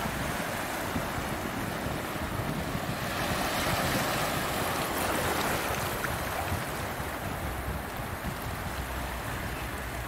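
Sea surf washing over a shallow rock shelf, swelling louder about three seconds in and easing off after about six seconds, with a low rumble of wind on the microphone underneath.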